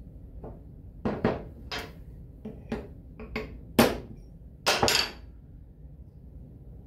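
Small ball-peen hammer tapping a steel punch to drive the bushing in a lathe change gear, with the gear resting on a wooden block. About ten sharp metallic taps come at irregular intervals, and the last few are the loudest.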